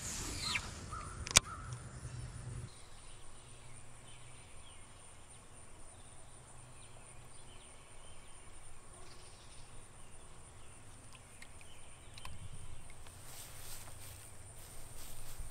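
A cast with a baitcasting reel: a brief whir falling in pitch as the spool spins down, then a single sharp click about a second in as the reel is engaged. After that, only faint outdoor ambience with a low rumble.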